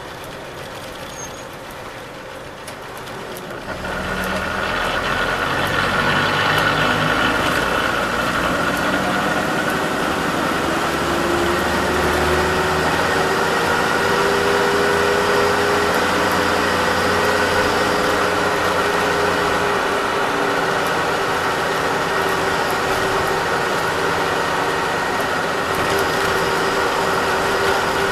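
1949 Bedford OB coach's six-cylinder petrol engine and drivetrain, heard from the cab: quiet at first, getting much louder about four seconds in as it accelerates, then running steadily under load with a whine that slowly rises in pitch.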